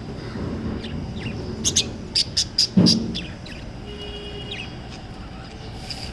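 Budgerigars chirping: a quick run of about five loud, sharp chirps a couple of seconds in, with softer chirps and chatter around them and a dull bump among the loud ones.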